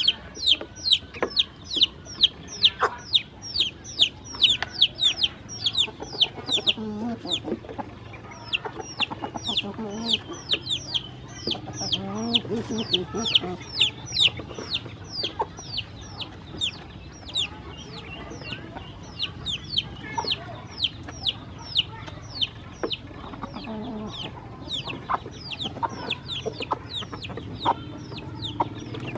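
Several ducklings peeping continuously: short, high calls that fall in pitch, about three a second, overlapping one another.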